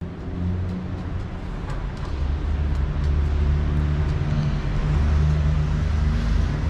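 City street traffic: a motor vehicle engine running close by with a steady low hum over the traffic noise, growing louder about two to three seconds in.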